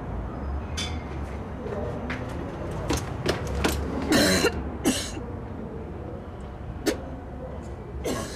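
A woman coughing and gagging over a washbasin: a run of short harsh bursts from about three seconds in, the loudest just past the middle, and one more near the end.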